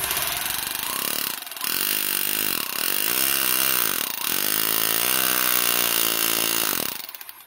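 Concrete hammer drill running in hammer mode with a nail-driving head pressed against a surface: a motor whine whose pitch rises and falls with the trigger over a fast rattling of the hammer action. It slackens briefly about three times and stops just before the end.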